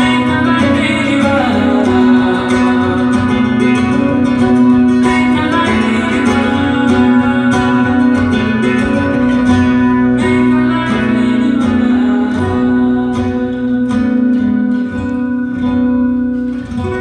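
Live acoustic guitar music: fingerpicked notes over a steady, held low note.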